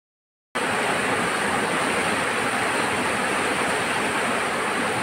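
Fast floodwater rushing and churning over submerged land, a steady loud rush that starts abruptly about half a second in.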